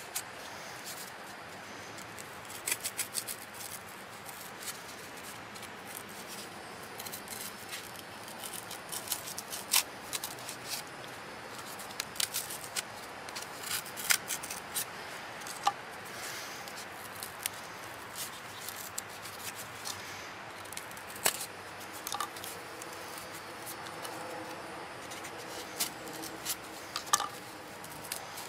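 A knife blade cutting through a piece of cardboard in short, irregular strokes, scratching and clicking as it works through the board.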